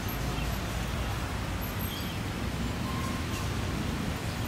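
Steady low rumble of road traffic as an LPG tanker truck drives over a railway level crossing, with a few faint short high chirps.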